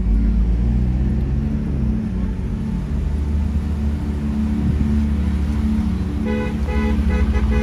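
Low rumble of slow car traffic heard from a car, with a car horn tooting in a run of short quick beeps near the end.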